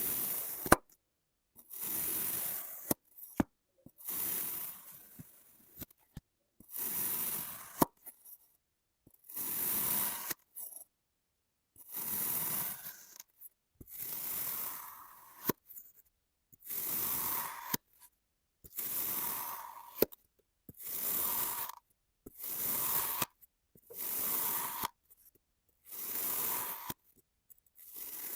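Kinetic sand being cut with a blade, a dozen or so separate gritty slicing strokes about every two seconds, with a few sharp clicks between strokes.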